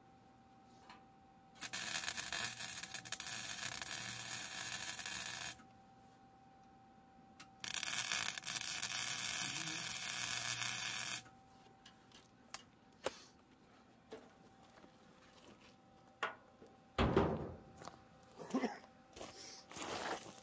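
Lincoln Electric wire-feed welder arc sizzling in two steady runs of about four seconds each, with a short pause between them. Near the end come scuffing footsteps on gravel.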